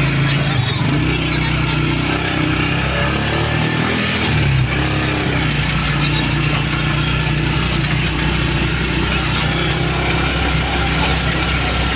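Motorcycle engine of a tricycle running steadily under way, its low hum wavering about three to four seconds in before settling again.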